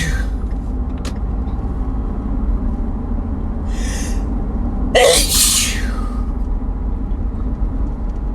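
A person sneezes once, loudly, about five seconds in, after a short breathy intake about a second before. A steady low rumble runs underneath throughout.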